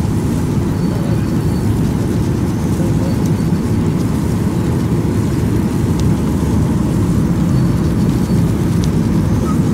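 Airliner cabin noise: a steady low rumble of engines and rushing air heard from inside the aircraft on approach to landing.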